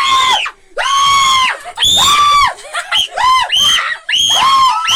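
Several people screaming in fright: a rapid string of high-pitched shrieks, each under a second long, some overlapping.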